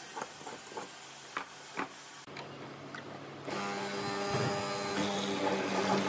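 A few light taps and scrapes of a marking gauge on a wooden board, then, from about three and a half seconds in, a benchtop hollow-chisel mortiser running with a steady motor hum as its square chisel plunges into the wood.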